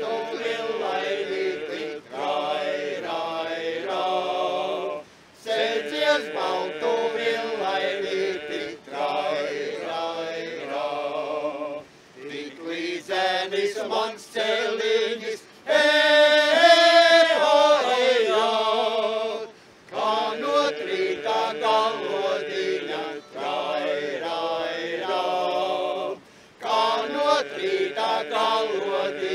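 Men's folk ensemble singing in the Suiti drone style: a held drone under a sung melody, in phrases of a few seconds with short breaks between them. From about 16 to 19 seconds one voice rings out louder above the group.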